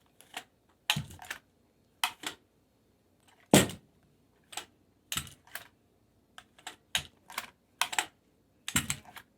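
Reacher grabber tool's jaws clacking and clicking shut, about fifteen irregular sharp clicks and knocks, the loudest about three and a half seconds in.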